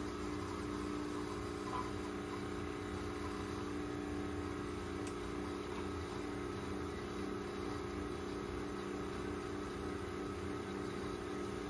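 Single-serve pod coffee maker partway through a brew cycle, its pump giving a steady hum as coffee runs into a glass jar of ice.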